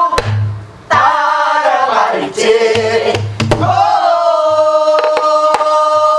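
Voices singing a pansori phrase together, sliding and bending between notes, then settling into one long held note about four seconds in. A soribuk barrel drum marks the rhythm under them with sharp stick strokes and a few deeper hand beats on the drumhead.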